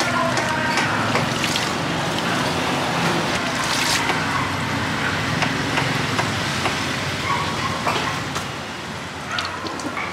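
Shredded green papaya and carrot being swirled and lifted by hand in a tub of water, the water sloshing and dripping, over a steady hum of street traffic.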